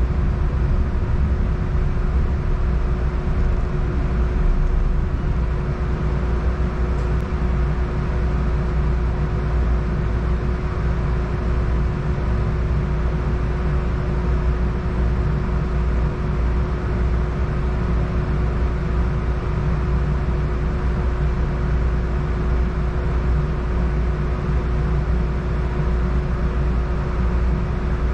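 Inside a Siemens S70 streetcar standing or barely moving: a steady low rumble with a constant electrical hum from the car's onboard equipment, unchanging throughout.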